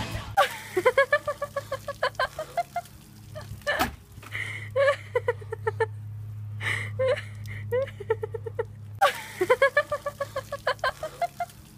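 Runs of quick, high-pitched vocal sounds, several pulses a second, starting and stopping in four or five spells over a steady low hum.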